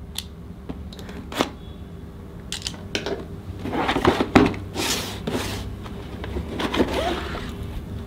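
A cardboard motherboard box being unsealed and opened: a blade slitting the seal sticker, the box handled and its lid flipped open. It starts with a few sharp clicks and taps, then turns to rustling and scraping of cardboard about four seconds in, with a little more near the end.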